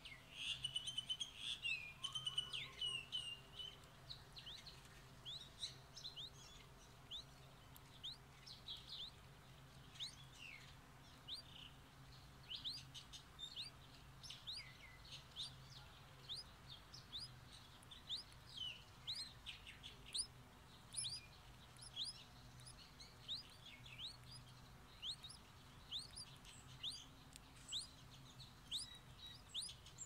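Many short, thin, high cheeps, repeated rapidly and loudest in the first few seconds, then going on more sparsely: streak-eared bulbul nestlings begging as they are fed at the nest.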